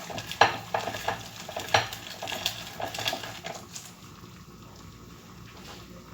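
A kitchen utensil knocking and scraping against a dish as cooked garlic and dried figs are squeezed and mashed into a paste. It gives irregular clinks for about three and a half seconds, then stops, leaving only faint background noise.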